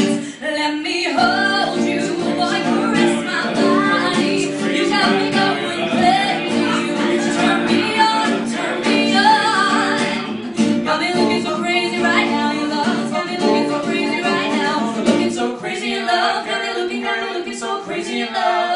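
A woman singing live to acoustic guitar accompaniment, the guitar strummed in a steady rhythm under the voice.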